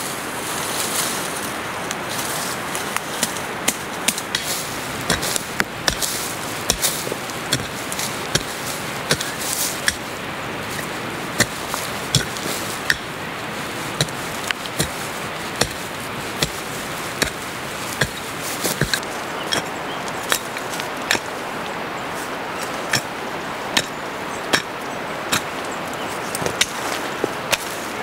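Short-handled chopping tool striking into soil, roots and brush while clearing ground: a long run of sharp chops, about one to two a second with brief pauses, over steady background noise.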